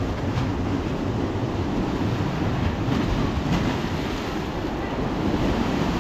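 Sea waves breaking and washing up a sandy beach, a steady surf noise with wind buffeting the microphone.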